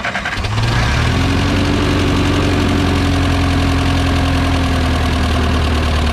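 Ferguson TO20 tractor's four-cylinder gasoline engine catching from the starter and settling into a steady idle within about a second. It is firing on all four cylinders after a points-to-Pertronix electronic ignition conversion.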